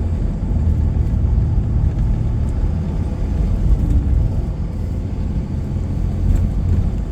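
Truck driving along a road, heard from inside the cab: a steady low rumble of engine and road noise.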